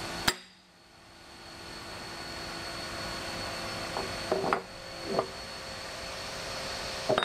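Aluminium mold inserts being handled and seated in a thermoforming mold plate: a sharp metal click about a third of a second in, a few short knocks around four to five seconds in, and another couple of knocks near the end. Under it all runs a steady hum.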